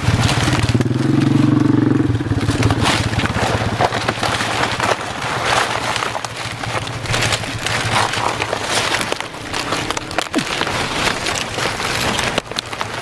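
Dry banana leaves crackling and rustling as they are pulled and torn by hand. A low steady drone sounds underneath during the first couple of seconds.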